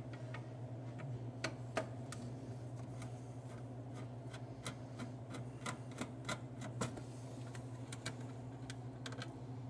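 Irregular light clicks and ticks of a screwdriver working loose the screws that hold a plastic top cover on a prize wheel, over a steady low hum.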